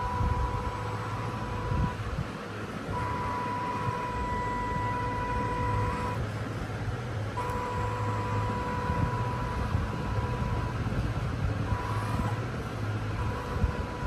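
Small electric RC truck running, with a steady high whine that cuts out and comes back a few times over a low hum.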